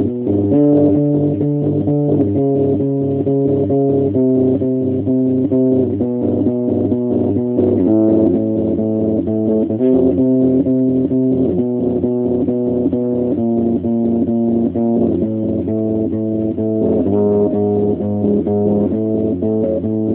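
Electric bass guitar played solo: a steady stream of quick plucked notes in a made-up riff, moving to new pitches every few seconds.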